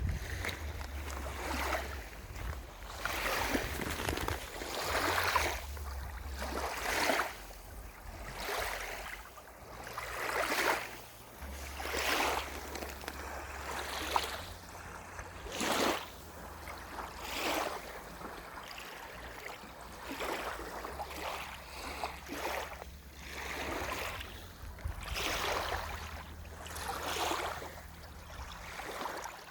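Water splashing and washing in repeated surges, roughly one every second or two, over a low rumble.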